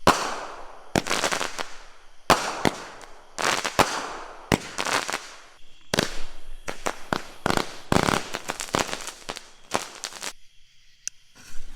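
Consumer fireworks going off: a quick string of sharp bangs, often less than a second apart, each trailing off. The bangs pause briefly about ten seconds in.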